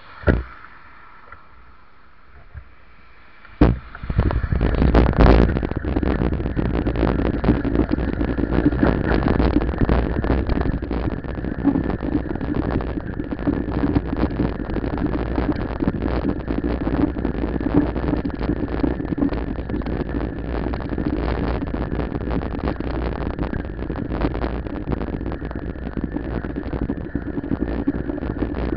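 Wind buffeting the microphone and a rattling road rumble from a bicycle riding along asphalt. It starts about four seconds in, after a couple of sharp knocks, and runs on loudly and unevenly.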